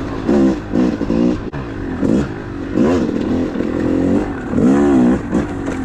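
2013 Yamaha YZ250's two-stroke single-cylinder engine revving up and down in short throttle bursts while being ridden on a trail, with the loose drive chain slapping.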